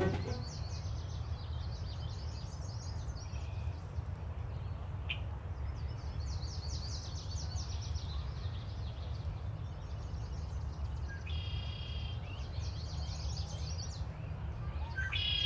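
Countryside ambience: songbirds chirping and trilling in short bursts over a steady low rumble.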